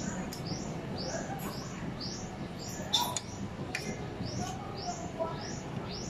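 A small bird chirping over and over, one short rising high chirp about twice a second, with a sharp clink of a spoon and fork on a plate about halfway through and a steady low hum underneath.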